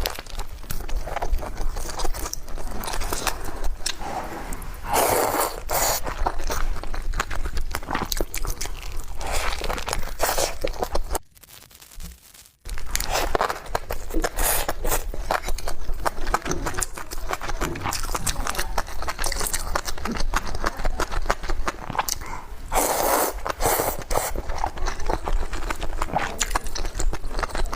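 Close-miked eating: a person chewing and biting food with dense, rapid wet mouth clicks and smacks. There is a short silent break about eleven seconds in.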